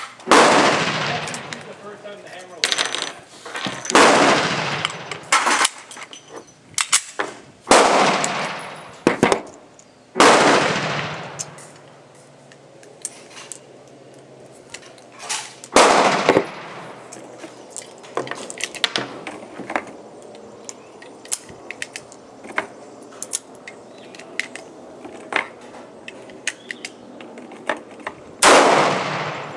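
Handgun firing six slow, deliberate shots several seconds apart, each ringing out for a second or more, with fainter sharp cracks in between.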